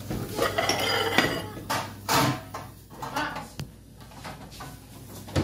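Dishes, pans and cutlery clattering as someone rummages through them: a busy burst of clinks and knocks for about the first second and a half, then a few separate clatters.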